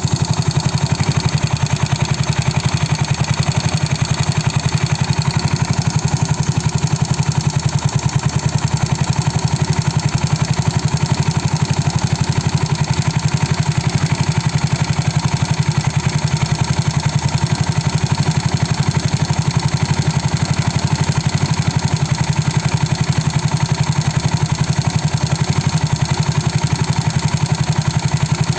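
Yamaha Mio Sporty scooter's single-cylinder four-stroke engine idling steadily with a rapid, even clatter, which the owner takes for piston slap.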